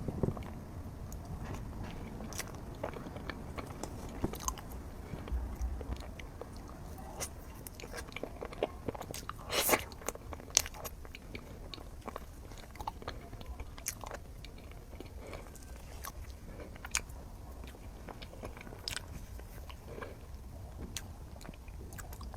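Someone eating chocolate lava mille-crepe cake: bites and chewing, with many short irregular clicks and a louder burst about ten seconds in.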